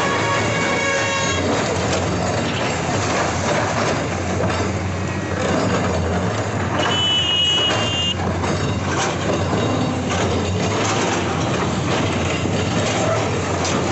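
Diesel engines of Komatsu PC210 excavators running hard during demolition, with the crunch of breaking masonry in a steady loud din. A vehicle horn fades out about a second in, and a short high beeping tone sounds about seven seconds in.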